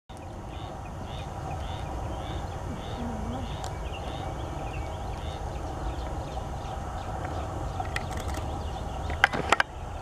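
Red-cockaded woodpecker pecking at a pine branch: a few light taps about eight seconds in, then three sharp knocks just after nine seconds. Earlier, a series of faint bird calls about two or three a second over a steady low rumble.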